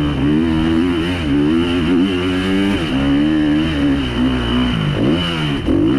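Motocross bike engine racing hard, its revs rising and falling over and over, with sharp drops as the rider backs off and gets back on the throttle about a second, three seconds and five seconds in.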